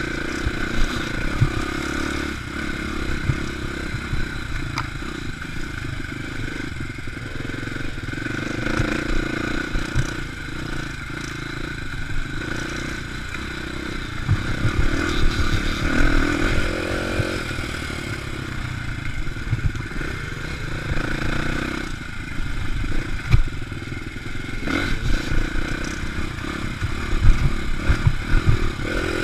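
Dirt bike engine heard from onboard the bike while riding a rough trail, rising and falling with the throttle, with rattles and knocks from the bike over bumps.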